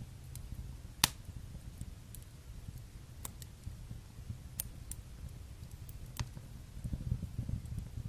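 Fire burning in a fireplace: a low, steady flutter of flames with scattered sharp crackles and pops, the loudest about a second in.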